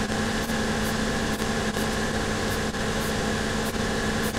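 Shoe finishing machine motor running steadily, a hum with a light regular swish about twice a second, as a new heel base is sanded to match the old one's size.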